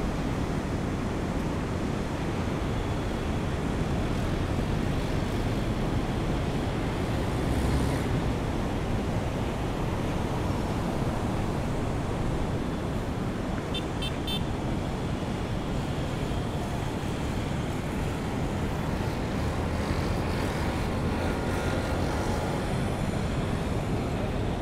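Steady outdoor wash of rain and wind noise mixed with road traffic, with a low rumble underneath. A short run of faint high beeps comes about two-thirds of the way through.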